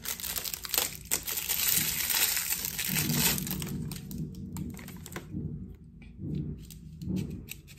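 Plastic packaging crinkling and rustling as it is handled, with many small clicks, easing off about five seconds in to a few separate clicks of small plastic parts.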